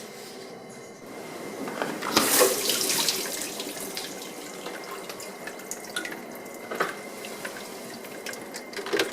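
Water running and splashing, swelling and loudest about two seconds in, then steadier, with a few short knocks.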